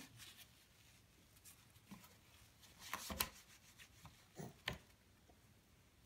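Faint taps and rubbing of a baby's hands on a plastic high-chair tray while handling pieces of banana, with a few louder taps around three seconds in and again around four and a half seconds.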